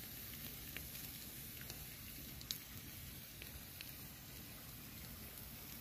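Skewered pomfret fish sizzling faintly over smouldering wood embers, with scattered small crackles and one sharper pop about two and a half seconds in.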